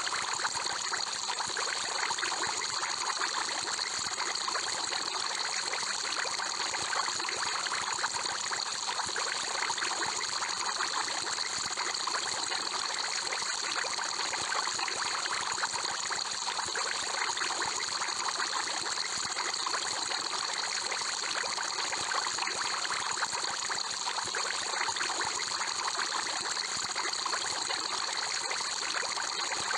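Aquarium air bubbler: a steady stream of bubbles trickling and bubbling through water, unchanging throughout.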